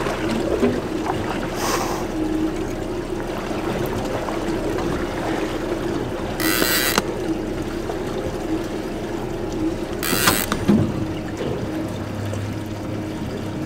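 Outboard motor running steadily at low speed, with two short buzzing bursts of a fishing reel's drag giving line, a little over six seconds in and about ten seconds in, as a hooked kingfish pulls.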